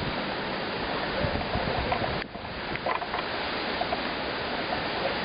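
Strong gusty wind of an approaching hurricane blowing and buffeting the microphone, with a brief lull a little over two seconds in.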